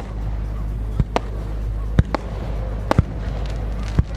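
Fireworks shells bursting in sharp bangs about once a second, some in quick pairs, over a steady low rumble.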